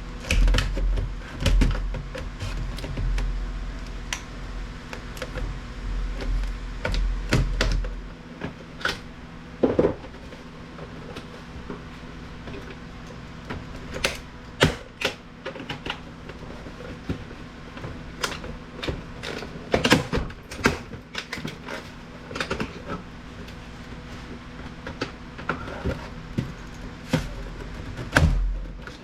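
Scattered clicks, knocks and clatter of hand tools and plastic and metal parts being handled while electronic equipment is pulled apart for scrap, with a low rumble through the first eight seconds or so.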